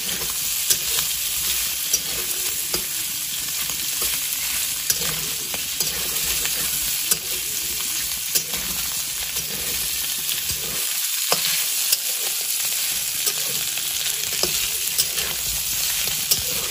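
Pork pieces sizzling in oil in a steel kadai over low flame as the fat renders out of the meat. A metal spatula scrapes and clicks against the pan now and then as the pieces are stirred.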